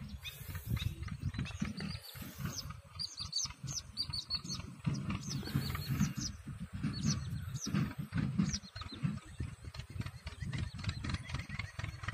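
Many small birds chirping, short quick calls repeated over and over, over a low rumble of wind on the microphone that keeps cutting in and out.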